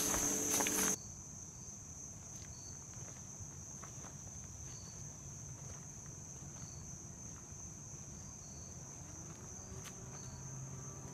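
Steady high-pitched drone of insects in woodland. During the first second, footsteps crunch on a dirt trail, then stop. After that the insect drone carries on more quietly, with faint short high chirps every couple of seconds.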